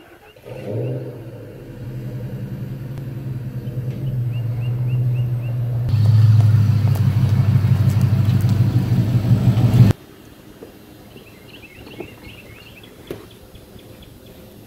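A vehicle's engine running and growing louder as it pulls up close, then switched off abruptly about ten seconds in. Birds chirp faintly in the background.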